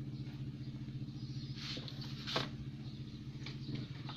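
A steady low electrical hum, with a few light clicks about two seconds in as a small regulator transistor is handled and set down on the wooden workbench.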